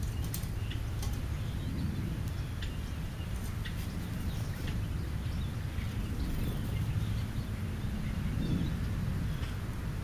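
Scattered short bird chirps and a few sharp clicks over a steady low hum.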